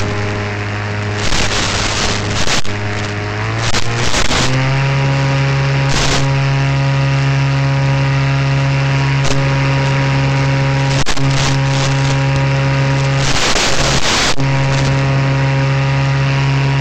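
RC paramotor's motor and propeller running, a steady hum that rises in pitch about four seconds in as the throttle comes up, then holds. Short bursts of hiss cut in a few times, the static of the analog FPV radio link breaking up.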